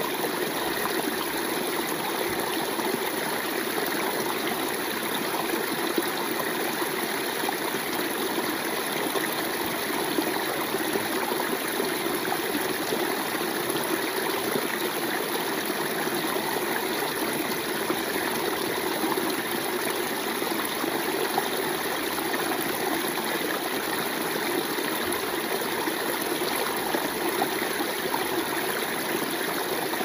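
Forest stream running: a steady, unbroken wash of flowing water.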